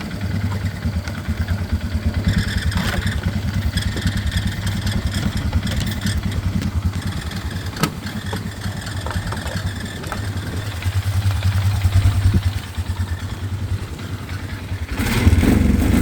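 Polaris Sportsman 500 HO ATV engine idling unevenly, with a misfire that the owner traces to the CDI box's black kill wire. It gets louder near the end.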